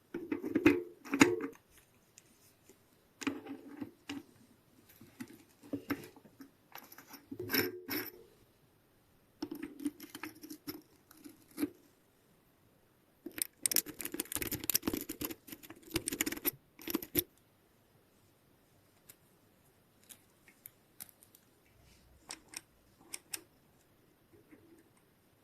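Light metallic clicking and rattling in short separate bursts, with a longer run of rapid clicks about halfway through, then only a few faint ticks.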